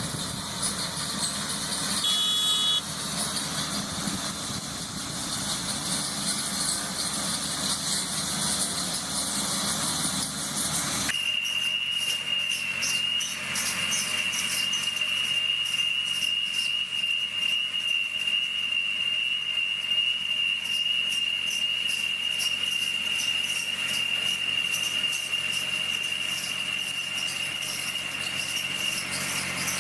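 Tree-cutting machinery running with a steady high-pitched whine over a mechanical rumble, with a brief beep about two seconds in. About eleven seconds in the sound changes abruptly to a louder, purer steady whine with rapid crackling above it.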